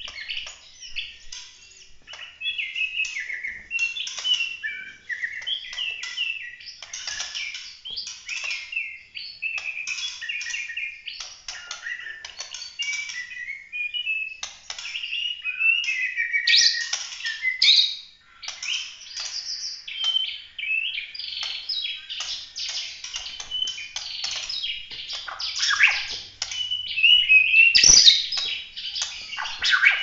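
White-rumped shama (murai batu) of the Bahorok strain singing continuously: a long, unbroken run of rapid, varied whistled phrases and sharp chirps, in the full-voiced competition style keepers call 'tembakan', loudest near the end. A single sharp knock sounds a couple of seconds before the end.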